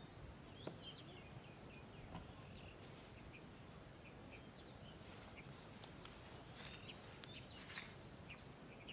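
Faint outdoor sound of a water buffalo grazing: several short, crisp rips as it tears and crops grass, with small birds chirping now and then.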